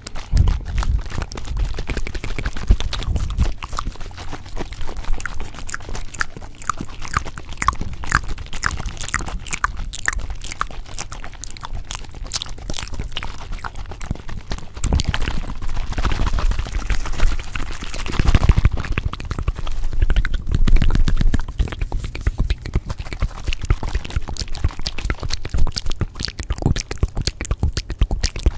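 Layered ASMR trigger sounds: a dense, continuous run of crackling and clicking over a low rumble, heavier between about 15 and 21 seconds in.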